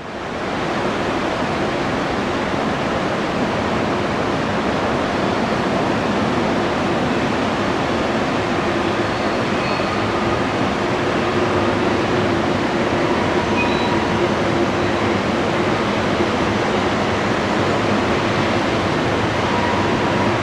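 Long CN freight train rolling past, a steady roar of wheels on rail.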